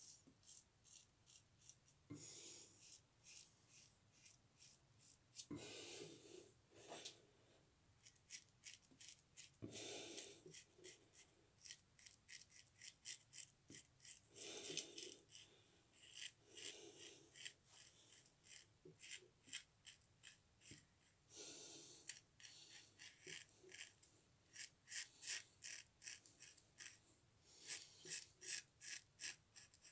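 Ever Ready single-edge safety razor scraping through lathered beard stubble: quiet, dry, raspy scratches in short, quick strokes, one after another in runs.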